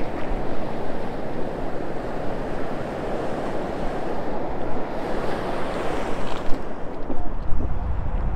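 Shallow ocean surf washing and foaming around the feet, a steady rushing wash, with wind rumbling on the microphone near the end.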